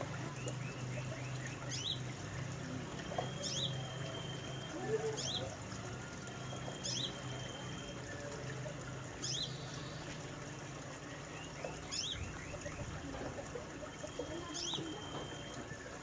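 A sunbird (kolibri manggar) calling over and over: short, sharp rising notes about every one and a half to two seconds, some joined by a brief level whistle.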